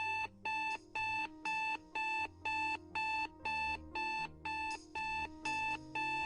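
Digital alarm clock beeping: short, identical electronic beeps repeating evenly at about two a second, over a soft low bass line.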